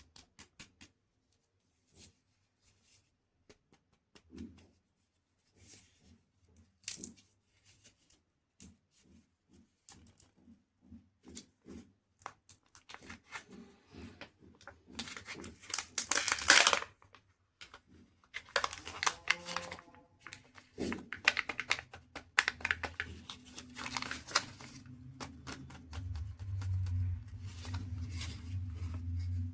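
Chocolate wrapper being crinkled and torn open: scattered crackles that come thicker as it goes, with one long loud tear about halfway through. A low hum sits under the last few seconds.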